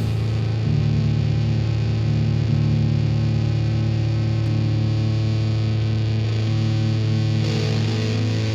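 Instrumental rock passage: distorted electric guitar run through effects over bass, holding sustained low notes, with no vocals.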